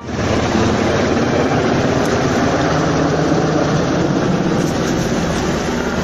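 Firefighting helicopter flying low overhead: a loud, steady rotor and engine noise that starts suddenly.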